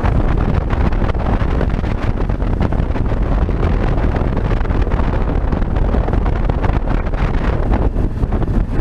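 Wind rushing over the microphone of a motorcycle-mounted action camera, mixed with the steady running of a Yamaha Ténéré 600's single-cylinder engine at cruising speed.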